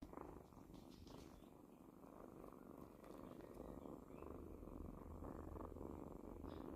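Kittens purring steadily and softly while drinking milk.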